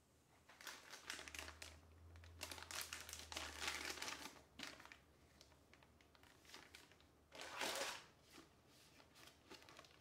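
Plastic bags around keyboard parts crinkling as they are handled, in several rustling bursts, with a shorter, louder burst about three quarters of the way through.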